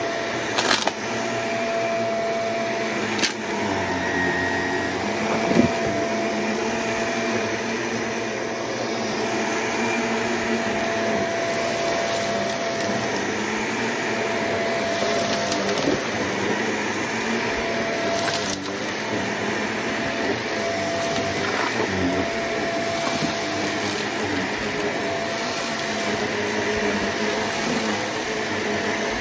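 Shark upright vacuum cleaner running steadily on carpet, its motor giving a constant whine. A few sharp clicks and crackles come through as it picks up loose granules from the carpet.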